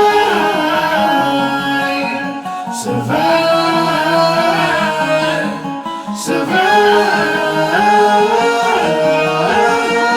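Music: a quiet break in a rap song, with a plucked guitar melody and wordless sung vocals, without drums or bass.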